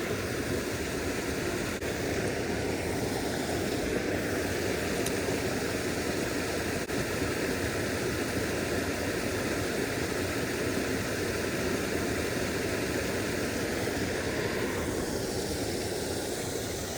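Creek water running steadily, an even wash of flowing-water noise that eases slightly near the end.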